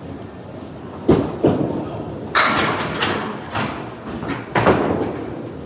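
Candlepin bowling: two sharp thuds of a small ball hitting the lane, then a loud clatter of wooden candlepins being knocked down, with several more clattering hits following.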